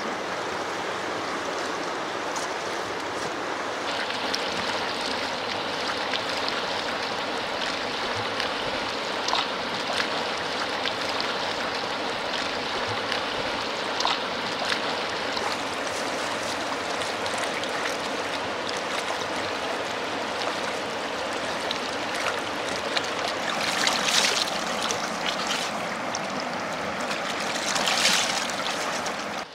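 Mountain river running fast over a stony bed: a steady rush of water, with two louder splashes close by near the end.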